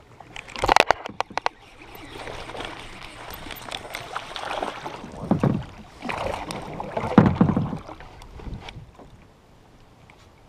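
Sharp clicks from a baitcasting reel about a second in, then several seconds of irregular water splashing and sloshing as a small bass is reeled to the kayak and swung out of the water. The loudest surges come around five and a half and seven seconds in.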